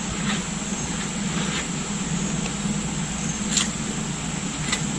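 Steady mechanical hum, with a few faint light clicks or scrapes scattered through it.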